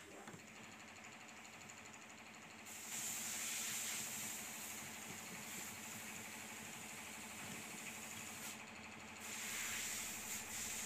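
An engine running steadily: a low hum under a hiss, getting louder about three seconds in.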